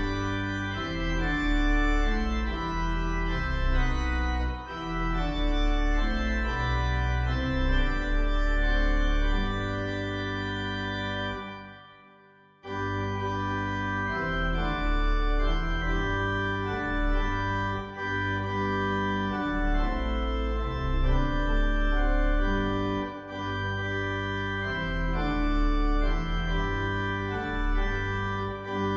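Organ playing slow, sustained chords. About eleven seconds in the music fades away to near silence, then starts again abruptly a second or so later.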